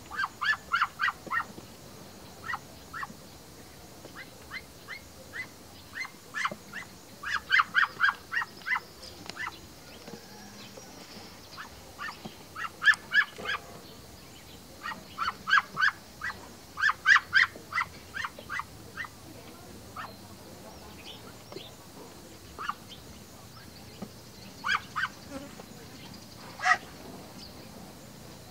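A flock of domestic ducks quacking in quick runs of short, repeated calls, several clusters of a few to about eight quacks each, with pauses between runs.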